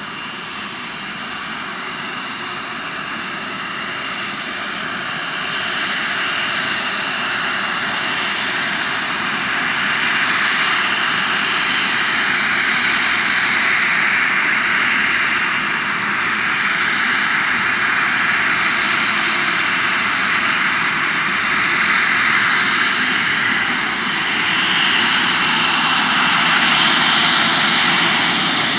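Boeing 737 twin jet engines running at low taxi thrust: a steady jet roar with a high whine, growing louder as the airliner approaches and rolls past close by.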